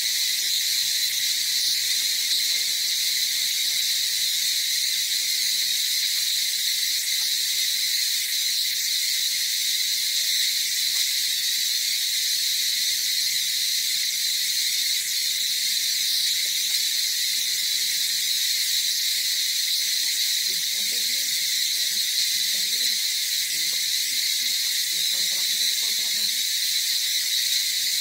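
Steady, high-pitched chorus of insects buzzing without a break.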